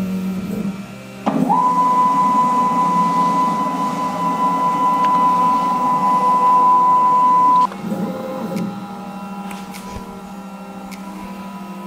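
WorkBee CNC's stepper motors driving the gantry: a steady whine starts about a second in and cuts off suddenly some six seconds later, followed by a shorter, quieter move. A low steady hum runs underneath.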